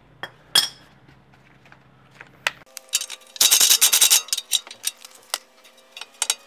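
Socket wrench on a universal-joint extension working the nut on a tie rod end's ball-joint stud: a quick run of ratchet clicks just past the middle, with scattered metal clicks and clinks of the socket on the nut around it.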